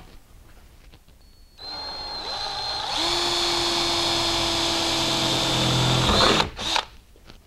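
Power drill boring a hole through the steel door skin of a 1967-68 Mercury Cougar. It starts about one and a half seconds in, gets louder about three seconds in, and runs steadily until it stops after about six seconds. Two short knocks follow.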